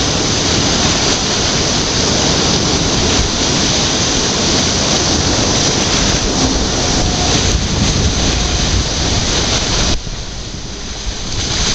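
Whirlpool above a navigation lock's underwater filling intake: river water swirling and sucking down as the lock chamber fills, a loud steady rushing noise with a deep rumble. It falls off noticeably about ten seconds in.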